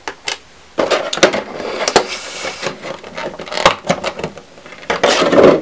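Small hard-plastic Beyblade parts clicking and rattling as they are handled and taken out of a clear plastic blister tray, with the tray crinkling. A couple of light clicks come first, then a steady run of clicks and crinkles from about a second in.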